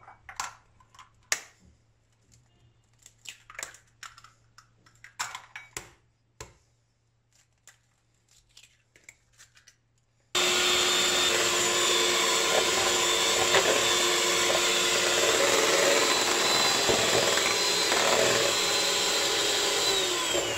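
An electric hand mixer switches on suddenly about halfway through and runs at a steady speed, whisking raw eggs in a bowl until they are foamy. Before it starts there are a few light taps and cracks as eggs are broken on the bowl's rim.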